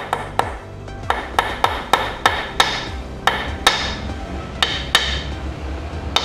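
About a dozen sharp metallic hammer strikes at an uneven pace, each with a short ring, as a new press-fit bearing is driven into the scooter's final-drive housing through an old bearing used as a drift. Steady background music underneath.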